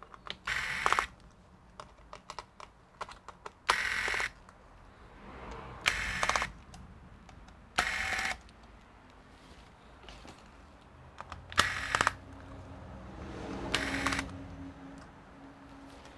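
Corded electric precision screwdriver whirring in six short bursts of about half a second each, backing screws out of a laptop's battery. Light clicks of the tool and screws being handled come between the bursts.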